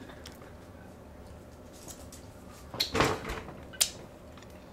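Things handled at a dining table: a short scraping rustle about three seconds in, then one sharp click, against quiet room background.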